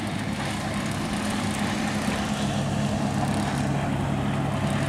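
Motorboat engine running steadily with a low, even hum, growing slowly louder as the boat passes.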